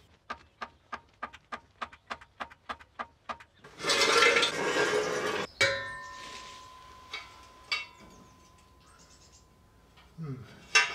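A quick run of metallic clicks, about four a second, then a loud scrape of a steel exhaust pipe being handled. About five seconds in it clangs and rings on with a clear metallic tone for a few seconds.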